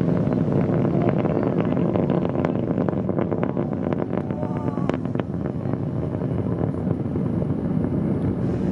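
Distant Atlas V rocket's RD-180 first-stage engine during ascent: a deep, continuous rumble with sharp crackles, the crackles strongest a few seconds in. Wind buffets the microphone.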